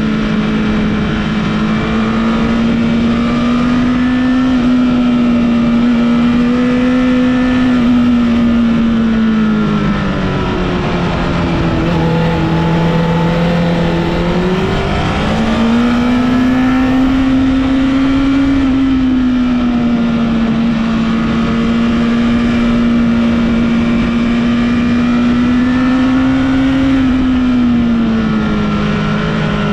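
Honda CBR1000RR Fireblade's inline-four engine running at steady high revs. The revs drop around ten seconds in and climb back up about five seconds later.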